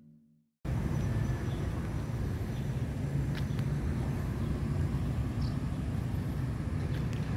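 Steady low outdoor rumble with a few faint ticks, cutting in suddenly about half a second in after a moment of silence.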